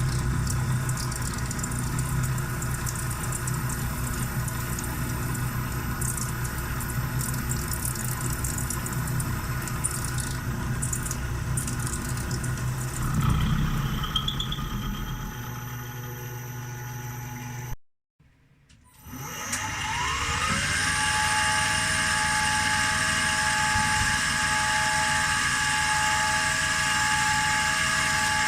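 CNC milling machine running steadily, its electric spindle and motors humming. About two thirds in the sound breaks off, then the spindle spins up again with a rising whine that settles into a steady high whine.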